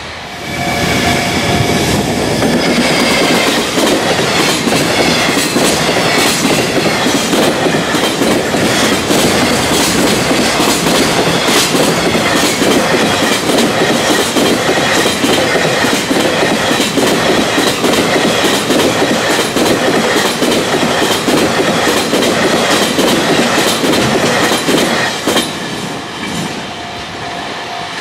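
Freight train of container wagons passing at high speed over rail joints: a loud, continuous, rapid clickety-clack of wheels hitting the joints, which stops abruptly near the end as the last wagon clears. A level-crossing warning bell rings steadily before the train reaches the crossing and again after it has passed.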